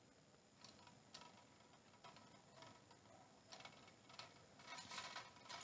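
Near silence with faint, irregular clicks and taps of hands working the ring light's tripod mount as it is tightened, a little busier near the end.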